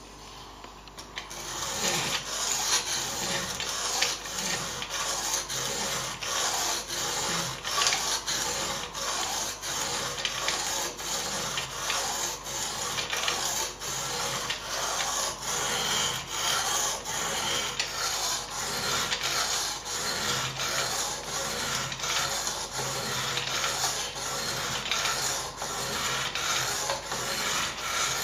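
Water-wetted 320-grit sharpening stone in a Ruixin Pro II guided sharpening system rasping along the steel edge of a Buck 110-style folding knife, in quick repeated back-and-forth strokes that begin about a second and a half in.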